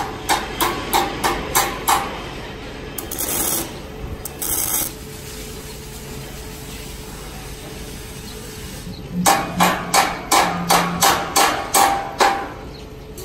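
Hand hammer striking a steel light pole: a quick run of sharp metal blows, about three a second, then two short hissing bursts. After a pause comes a second, longer run of about ten blows.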